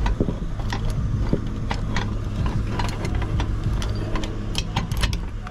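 Camera handled close to its microphone: irregular clicks and rubbing over a steady low hum.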